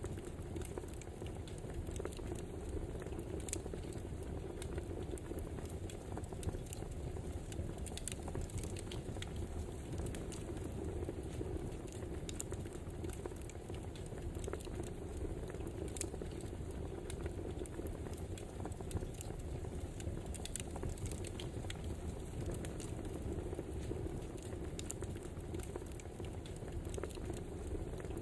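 Wood fire burning steadily, a soft rushing of flames under frequent small crackles and pops from the burning logs.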